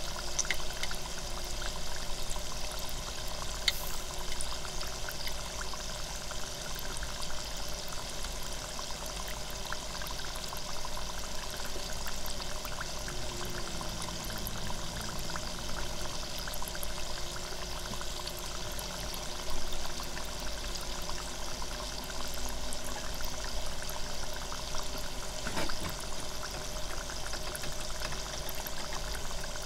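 Spring roll deep-frying in the hot oil of an electric deep fryer: a steady sizzle full of small crackles and pops, with a few louder pops.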